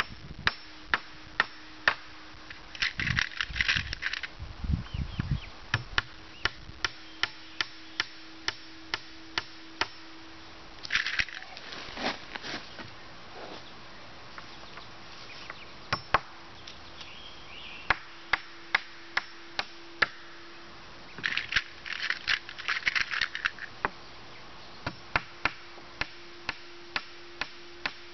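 Claw hammer driving nails into wooden boards: a steady run of sharp strikes about two a second, broken a few times by short flurries of quicker, lighter taps. A faint steady hum lies underneath.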